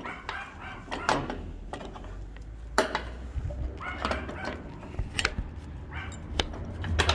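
A dog barking a few short times at irregular intervals, with light clicks and knocks in between.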